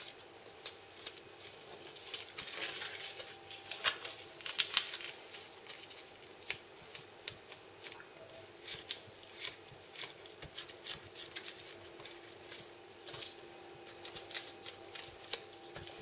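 Crisp dried nori being folded and pressed by hand on a bamboo sushi mat: scattered small crackles, rustles and clicks, with a faint steady high tone underneath.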